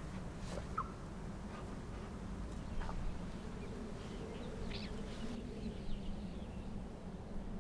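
A dog whining softly: a short rising yelp about a second in, then a faint, wavering whine for a couple of seconds past the middle.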